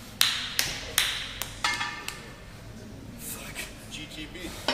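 A handful of sharp metal clanks from a plate-loaded hack squat machine and its weight plates as the sled and pads are moved, about six in the first two seconds, one ringing briefly.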